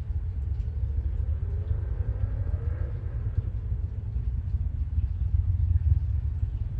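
Deep, steady, crackling rumble of a distant SpaceX Falcon 9 rocket in powered ascent. A faint higher drone rises and falls in the middle.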